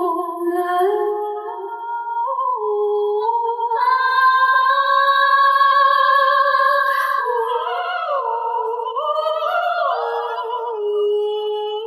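A male singer singing live into a microphone in a high, clear voice. He moves in steps between notes, holds a long note about four seconds in, then slides and wavers between notes near the end.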